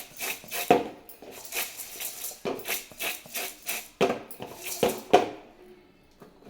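Spoon scraping and knocking against a metal tasla while stirring a dry, crumbly coriander panjiri mixture, irregular strokes about twice a second that stop about five seconds in.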